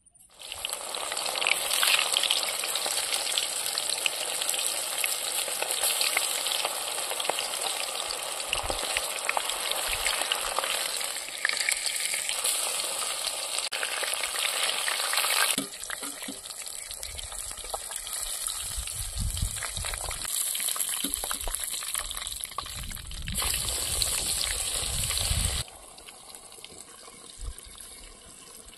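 Masala-battered fish pieces deep-frying in hot oil in a kadai: a loud, steady sizzling and crackling that starts suddenly. It steps down to a quieter sizzle about halfway through, with a few low thumps mixed in.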